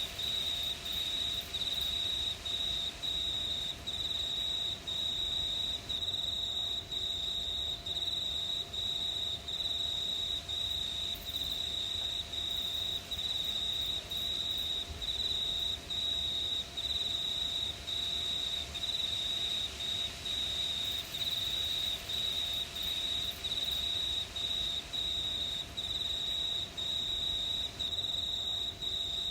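Field crickets chirping: one high-pitched cricket song dominates, a steady trill broken into short repeated phrases about twice a second, over a faint night-time hiss.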